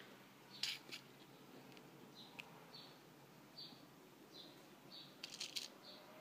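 Near silence with faint, short high chirps repeating about once a second, like a small bird calling, and a few soft clicks near the start and about five seconds in.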